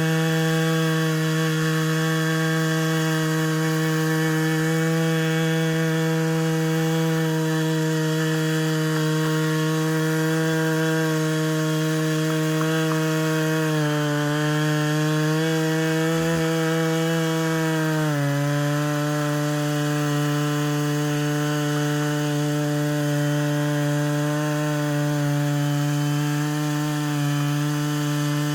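Stihl MS 660 two-stroke chainsaw running at high revs under load, ripping lengthwise through Western red cedar with a 36-inch bar on an Alaskan chainsaw mill. The steady engine note dips briefly about two-thirds of the way through as the saw loads up in the cut, then settles a little lower.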